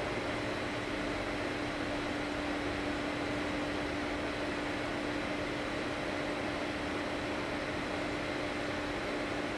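Steady hum and hiss with a constant low tone and fainter higher tones, unchanging throughout.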